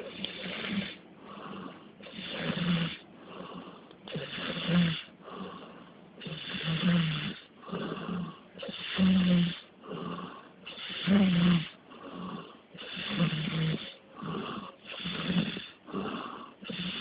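A sleeping man snoring, about one snore every two seconds, each with a low buzz.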